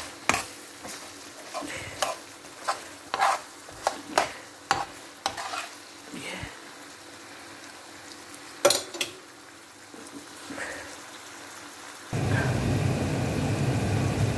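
A spatula scraping and knocking against a non-stick frying pan as a thick vegetable masala is stirred, about two strokes a second, over a low sizzle. The stirring stops after about five seconds, leaving the sizzle. There is one sharp knock about nine seconds in, and a louder steady rushing noise starts near the end.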